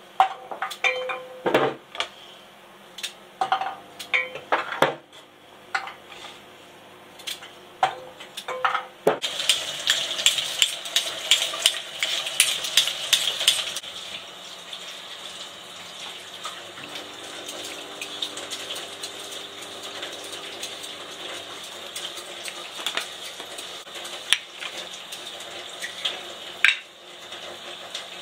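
Kitchen sink work: a bowl and utensils clink and knock against each other, then water from the tap runs for several seconds, followed by a quieter steady hiss with an occasional knock.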